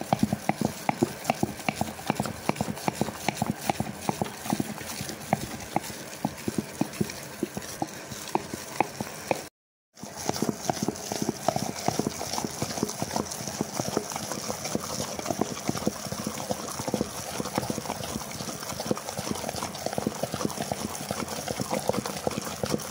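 Hand churner (madani) beating thick cream in a steel bowl: a fast, steady clatter of the churner knocking against the metal, with wet churning, as the cream turns to butter. The sound breaks off for a moment about ten seconds in.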